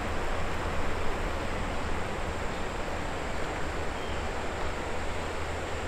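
Steady rushing hiss of flowing river water, even and unbroken.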